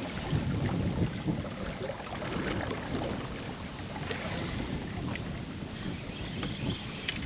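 Wind buffeting the microphone and water washing against a kayak hull, a steady rushing noise with a few faint ticks scattered through it.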